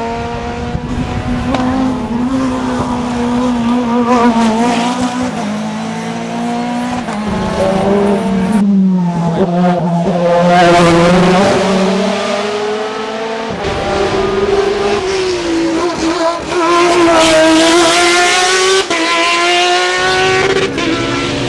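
Hill climb racing car's engine under hard acceleration, its pitch climbing and then stepping abruptly several times as the driver shifts gears up and down through the corners.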